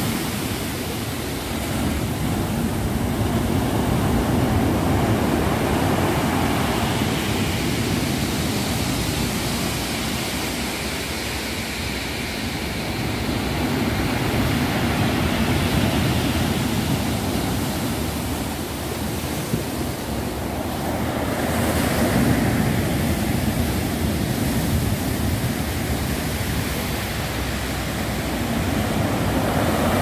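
Storm surf: heavy waves breaking and churning along the shore, a continuous loud rush that swells and eases every several seconds.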